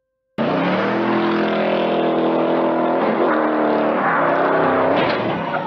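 Ford Mustang's engine revving hard at full throttle as the car accelerates away sideways, its pitch dipping and climbing again a few times. It cuts in suddenly about half a second in.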